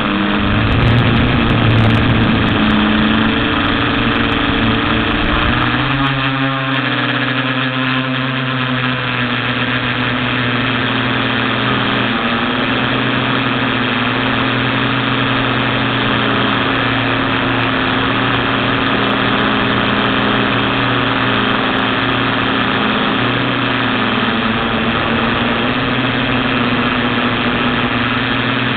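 TBS Discovery quadcopter's motors and propellers droning steadily in flight, picked up by the onboard camera, with small shifts in pitch. Wind rumbles on the microphone for the first several seconds.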